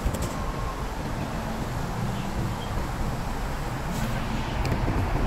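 Steady low outdoor rumble, with a few faint short high chirps and a couple of light clicks.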